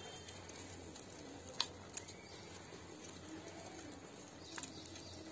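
Quiet kitchen sound: a few brief ticks and small plops as pinches of rice-flour dough are dropped into a steel pot of simmering water, over a low steady hum.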